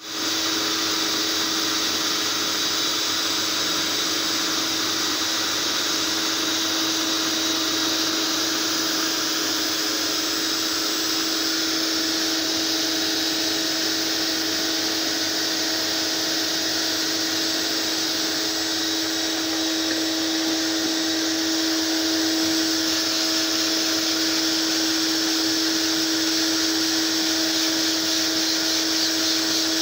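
Fabric spray-extraction machine running steadily, its vacuum motor giving a constant hum with a high hiss over it.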